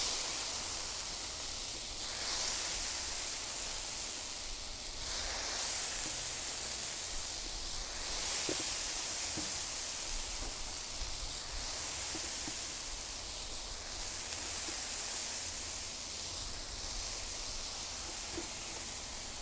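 Softened ramen noodles sizzling in hot coconut oil on a Cuisinart 360 XL griddle's flat top: a steady hiss that swells and eases every few seconds, with a few faint ticks.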